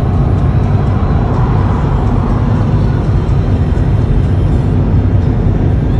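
Steady low rumble of a car in motion: engine and road noise.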